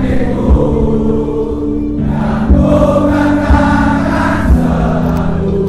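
Many voices singing a chant together, the melody held in long notes that change pitch in steps, over a bass drum struck about once a second.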